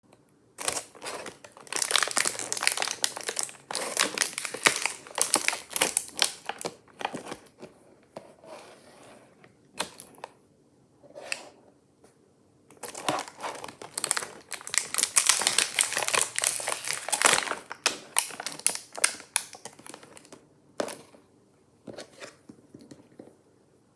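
Thin clear plastic blister packaging crinkling and crackling as toy figures are pried out of their moulded pockets. The crackles come in two long spells with a few seconds of quieter handling between them, and a few last crackles near the end.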